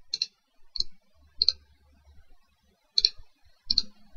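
Computer mouse clicked five times at uneven intervals, each a short, sharp click.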